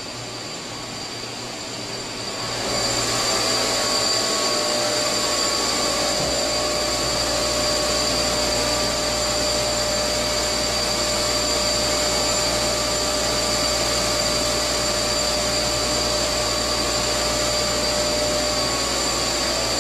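Steady machinery noise with a constant high whine; it swells to a louder, fuller level about two and a half seconds in and then holds steady.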